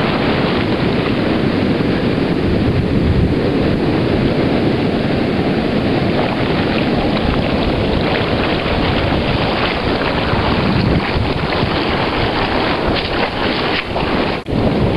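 Wind buffeting the microphone over the steady rush of breaking surf, with a brief drop about 14 seconds in.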